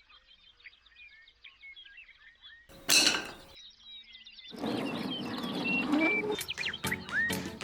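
Birds chirping and twittering, with a short loud whoosh about three seconds in; from about four and a half seconds the birdsong grows louder and busier.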